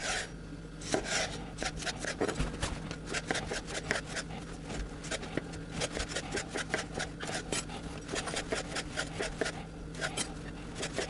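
Chef's knife slicing bell peppers into strips on a wooden cutting board: a quick, steady run of knife strokes, a few a second, each blade cutting through the pepper and knocking on the board.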